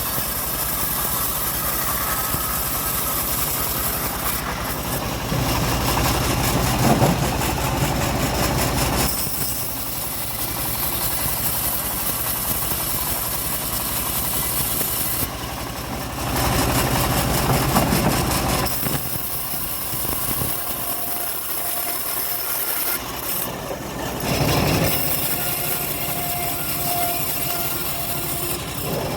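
Homemade bandsaw mill running steadily and sawing through a log. The sound shifts every few seconds as the blade goes into and out of the cut.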